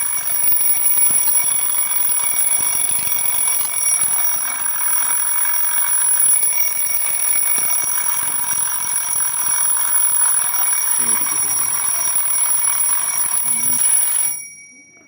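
Retro-style quartz alarm clock's alarm ringing loud and continuously, then cutting off suddenly about fourteen seconds in.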